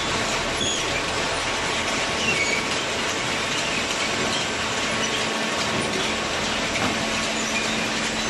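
Hydraulic cardboard baler running: a steady machine noise with a faint steady hum and scattered short high-pitched squeaks.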